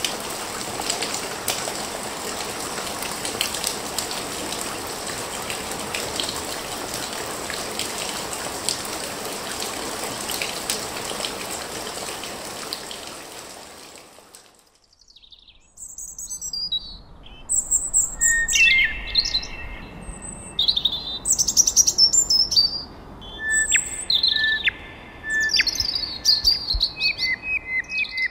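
A steady rushing noise like running water that fades out about halfway through, followed by birds chirping and calling, many short chirps and a few held whistles overlapping, over a faint low rumble.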